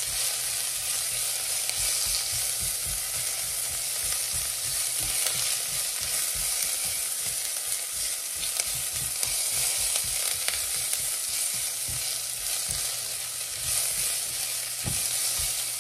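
Chopped lemongrass and onion sizzling steadily in hot oil, being fried until golden, while a silicone spatula stirs them, with soft irregular knocks and scrapes of the spatula against the pot.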